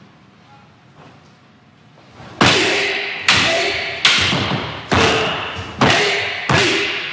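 Six sharp wooden clacks, about one every 0.8 s starting a little over two seconds in, each ringing briefly: a long wooden staff (bō) and a wooden sword (bokutō) striking together in a paired staff-against-sword kata.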